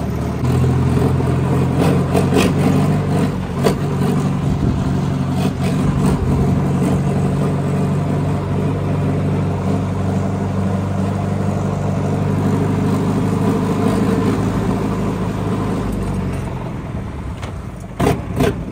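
Tractor diesel engine running steadily, with a few sharp cracks in the first seconds. The engine note dies away about sixteen seconds in, followed by a couple of loud knocks near the end.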